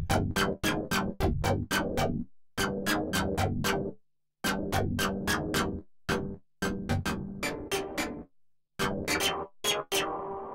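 Waldorf Blofeld synthesizer playing a wavetable patch: a quick rhythmic run of short, bright, punchy notes, about four a second, breaking off briefly twice. Near the end a held, sustained tone comes in.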